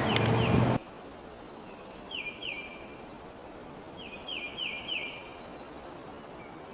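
A songbird calling in short series of quick, downward-slurred chirps: two about two seconds in and four about four seconds in, over a faint outdoor background. Before that, a louder steady rumble cuts off abruptly under a second in.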